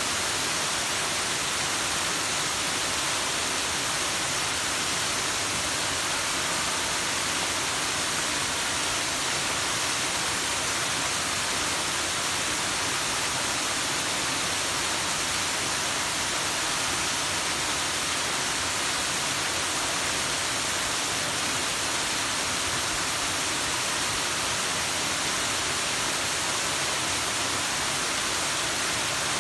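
Small tiered waterfall: water spilling over rock ledges and splashing onto the rocks below in a steady, hissing rush that holds even throughout.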